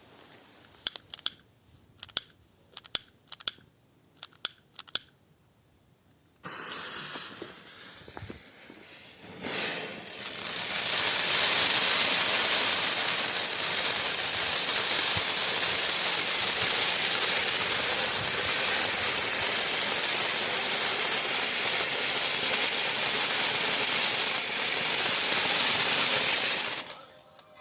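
JF09 fireworks fountain: a series of sharp clicks, then a quieter hiss begins about six seconds in and swells into a loud, steady spray hiss. The hiss cuts off abruptly near the end as the fountain burns out.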